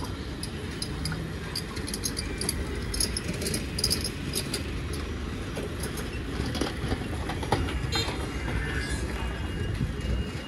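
Busy street ambience: a steady low rumble of traffic with bursts of light rattling and clicking.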